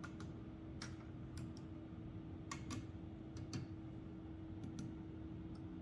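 Faint, scattered light clicks and taps of fingers and nails handling a large action figure, touching its plastic and metal parts, over a steady low hum.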